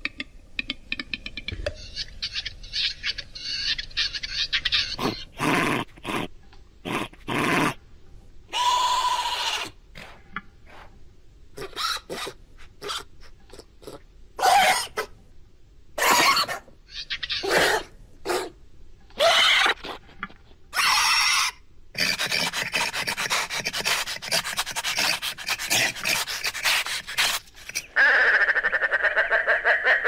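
Animal calls played as a reconstruction of a Utahraptor's voice: a series of short, hoarse, breathy calls with pauses between them, then a longer rasping call, and near the end a fast rattling trill.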